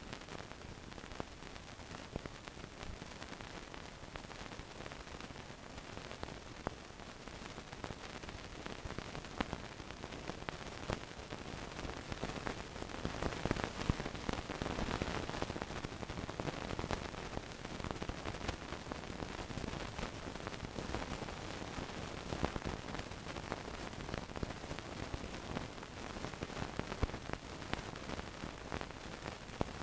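Surface noise of an old film soundtrack with no programme sound: a steady hiss scattered with crackles and clicks, a little louder for a few seconds in the middle.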